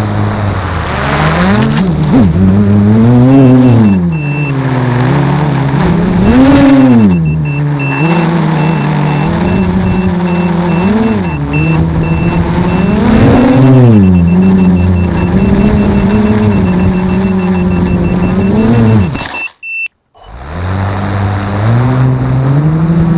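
Brushless motors and propellers of an Armattan Rev2 FPV quadcopter, heard from the onboard camera, whining up and down in pitch with the throttle over a rush of air. Near the end the sound cuts out for a moment, then the motors spool up again in a steady rise.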